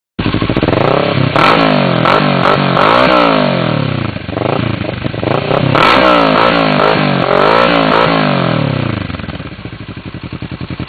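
Kawasaki ER-6n's parallel-twin engine breathing through a GPR Deeptone carbon slip-on silencer, revved again and again so the pitch climbs and falls with each blip. Near the end it drops back to a pulsing idle.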